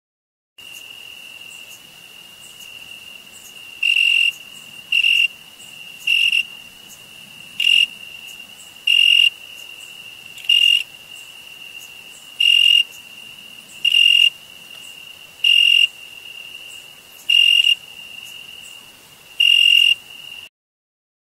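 Cricket singing: a steady high trill, with louder chirps about every one and a half seconds. It cuts off suddenly just before the end.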